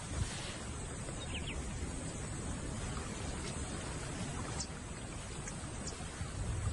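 Outdoor wildlife ambience: a steady hiss with low rumble, and a few faint, short bird chirps.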